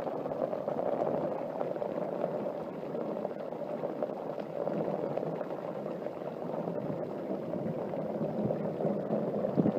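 Steady rush of rainwater pouring and splashing in a heavy thunderstorm downpour.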